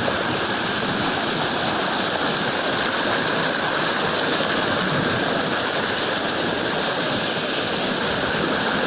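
Floodwater rushing and churning close by, a steady loud wash of moving water.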